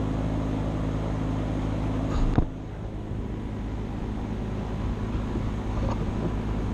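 A motor running with a steady hum, shut off with a sharp click about two seconds in, leaving a steady noisy background.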